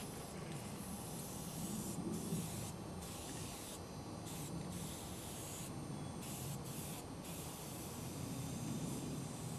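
Aerosol spray-paint can hissing in a run of on-off bursts, some over a second long and others short, with brief pauses between them.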